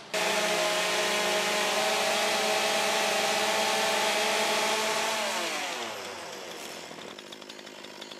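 A 40cc two-stroke chainsaw engine runs at full throttle with a steady high pitch while its top speed is read with a tachometer. About five seconds in, the throttle is released and the revs fall away to a quieter idle.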